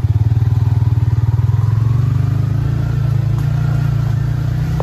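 Small motorcycle engine running steadily with a fast, even low pulse while being ridden along a dirt trail.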